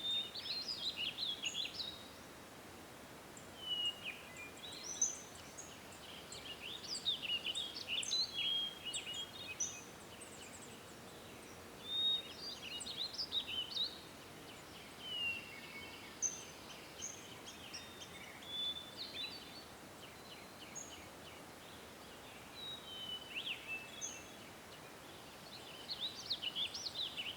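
Birds singing: short chirps, whistled sweeps and trills, phrase after phrase, over faint steady background noise.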